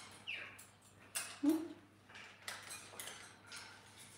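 Parrots clambering on a wire cage and play stand: scattered clicks and light metallic clinks of beaks and claws on the bars. A short falling chirp comes near the start, and a brief low call about a second and a half in.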